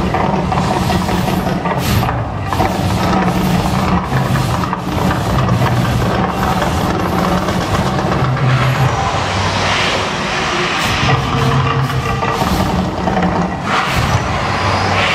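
Mirage volcano show in eruption: a loud, deep rumble that swells and ebbs about once a second, with noisy whooshes of gas flames about ten seconds in and again near the end.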